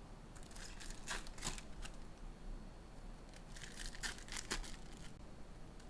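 Trading card pack wrappers crinkling and tearing as packs are opened, in two short spells of rustling, one about half a second in and one a little after three seconds.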